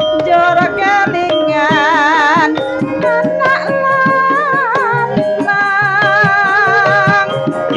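Javanese gamelan ensemble playing with a female singer. Her voice has a wide vibrato and sings over sustained bronze metallophone tones and quick hand-drum strokes.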